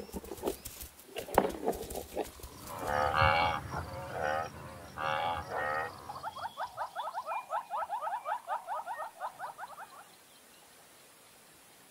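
Cape buffalo lowing: about three deep, drawn-out calls, after a few sharp knocks as the animals jostle. Then a fast chirping trill of about seven notes a second goes on for nearly four seconds.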